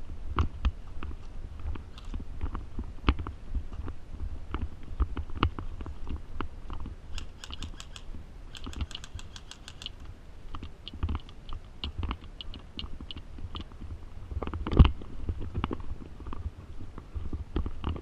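Airsoft gunfire: scattered single clicking shots, and two rapid full-auto bursts about seven to ten seconds in. A single loud thump comes near the end.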